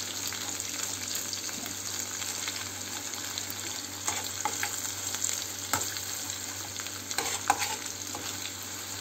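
Pepper and tomato paste sizzling steadily in hot oil in a metal pan while it is stirred and pressed with a metal spoon. The spoon scrapes and clicks against the pan a few times in the second half.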